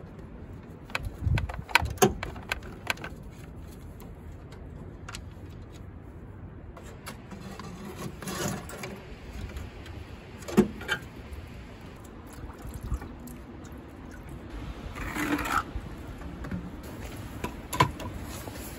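Scattered clicks, knocks and metal clinks of a wrench and car parts being handled, with a couple of short scrapes, as a car radiator is unbolted and lifted out of the engine bay.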